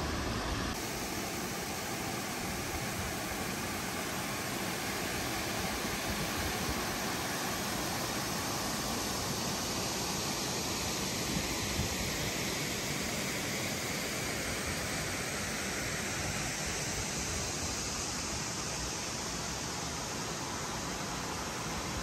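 Waterfall rushing: a steady, even roar of falling and churning river water with no breaks.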